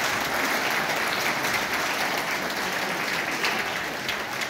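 A congregation applauding steadily, with a dense wash of many hands clapping at once.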